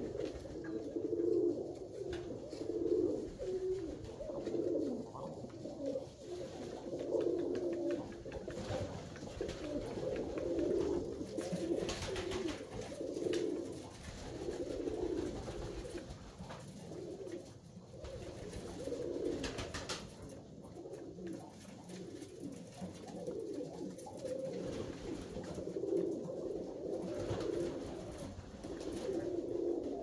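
Alföldi-Körösi tumbler pigeons cooing, low repeated coos overlapping one another without a break.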